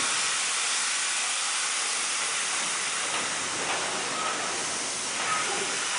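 Colliery steam winding engine hissing steadily as steam is let into it to set it working.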